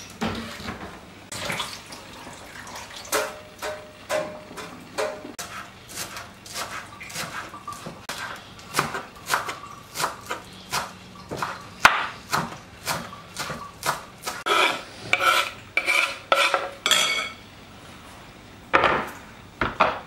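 An oven door shuts with a knock at the start; then a serrated knife chops dill on a wooden cutting board in a long run of sharp strokes, about two a second, with a few ringing clinks late in the run.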